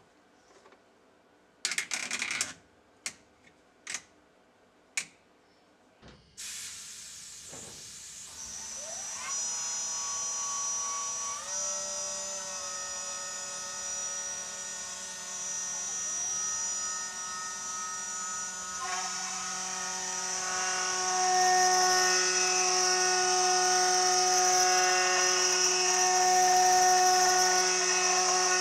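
A few sharp clicks from handling at the spindle head, then about six seconds in the CNC milling machine's 2.2 kW high-speed spindle starts and spins up with a rising whine, settling into a steady high whine. About two-thirds of the way in the sound grows louder and harsher as the 6 mm two-flute endmill begins cutting into the 10 mm aluminium plate.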